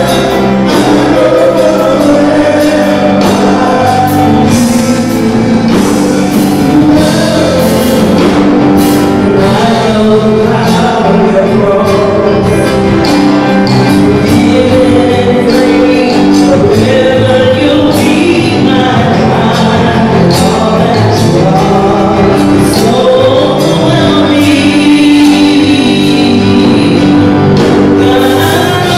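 Gospel music: a choir singing over instrumental accompaniment with frequent percussion hits.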